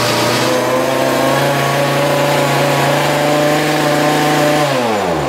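Stihl KM56 Kombi's small two-stroke engine, freshly pull-started on half choke, running at a steady speed. Near the end the pitch falls and the engine winds down to a stop.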